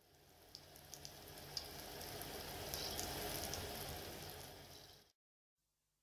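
A hissing, crackling noise effect, like sizzling or rain, swells over about three seconds, then fades and stops abruptly about five seconds in. It is the sound played under an animated production-company logo.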